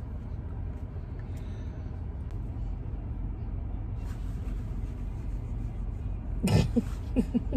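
Steady low rumble of a car heard from inside its cabin. Near the end there is a sudden thump, then a few short voice sounds.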